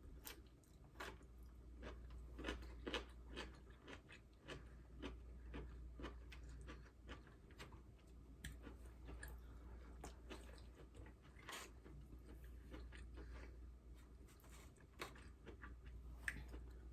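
Quiet close-up chewing of food, with many small irregular mouth clicks and smacks.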